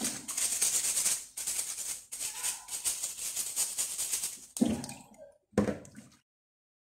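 Kitchen brush bristles scrubbing lemon peel, a fast steady rasping. Near the end come two splashes in the bowl of water, then the sound cuts off.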